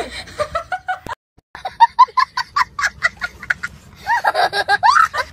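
A child laughing hard in quick repeated bursts, several a second, breaking into rising, squealing laughs near the end. In the first second, before a brief silent cut, voices from a household meal.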